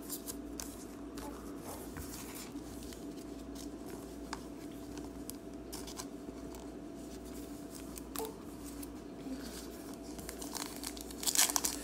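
Trading cards handled by hand, with faint scattered slides and clicks over a low steady hum. Near the end a foil card pack crinkles loudly as it is torn open.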